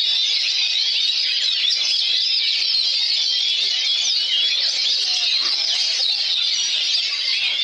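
Oriental magpie-robins singing, a dense, unbroken stream of high whistles and quick rising and falling sweeps, with several birds' songs overlapping.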